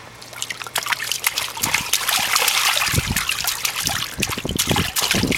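Water trickling and pattering into a shallow inflatable paddling pool, with a run of short splashes in the second half.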